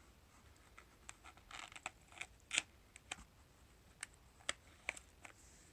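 Faint, irregular clicks and scratches of a knife tip cutting and picking at the tape wrapped around a battery pack, the loudest about two and a half seconds in.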